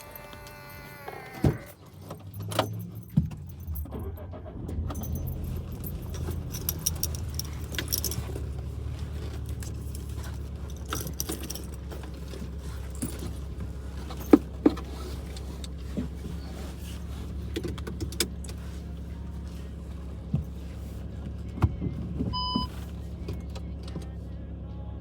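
Inside a car: a door thumps shut about a second and a half in, then the engine runs with a steady low hum, with scattered clicks and keys jangling. A short electronic beep sounds near the end.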